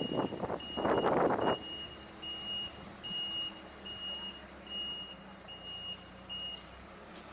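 A construction vehicle's reversing alarm beeping: single high-pitched beeps about every 0.8 s that stop near the end. A loud burst of rough machine noise runs over the first second and a half.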